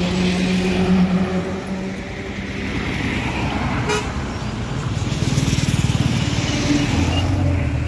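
Road traffic passing close by on a highway: a car and then a motorcycle drive past, their engine and tyre noise swelling and fading.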